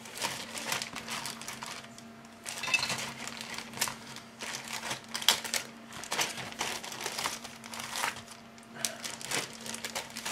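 Plastic bags of model-kit sprues crinkling and rustling as they are handled, in irregular bursts with sharp crackles.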